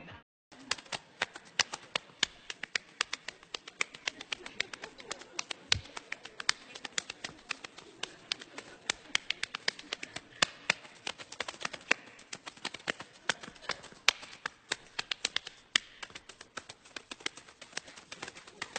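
A rapid, irregular run of sharp clicks and taps, several a second.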